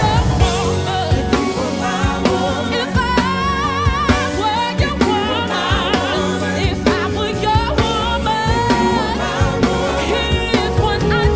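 A woman singing a soul ballad with wavering, vibrato-laden runs, over backing music with drums.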